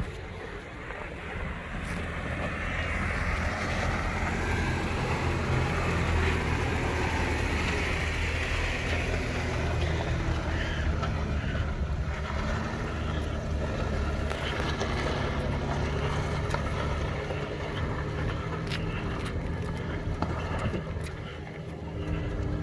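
Jeep Wrangler Unlimited engine running as the Jeep crawls over sandstone rock, swelling for several seconds about two seconds in and easing off toward the end.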